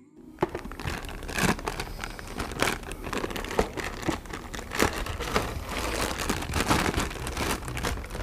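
Clear plastic bag crinkling and rustling as it is handled and pulled open by hand, with many sharp irregular crackles starting about half a second in.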